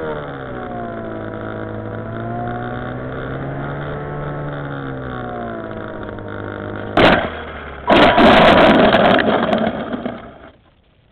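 Aerobird 3 RC plane's electric motor and propeller running at low throttle, the pitch rising and falling slightly. About seven seconds in comes a thump as the plane touches down, then a loud scraping slide across gravelly ground that stops just before the end.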